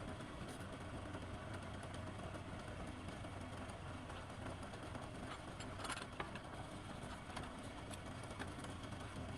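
A woodturning lathe's motor running with a steady hum, with a brief louder scrape or knock about six seconds in.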